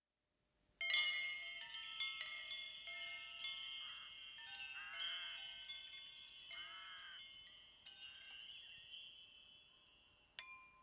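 Wind chimes tinkling: many overlapping high ringing notes that begin about a second in and slowly die away. A few short warbling calls sound among them near the middle.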